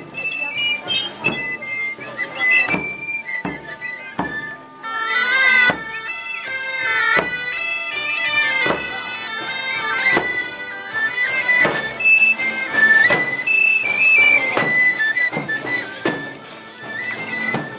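Galoubets, the shrill three-hole Provençal pipes, playing a folk melody over the steady beat of tambourins, the long Provençal tabor drums, with the drum struck about every two-thirds of a second by a marching pipe-and-tabor band.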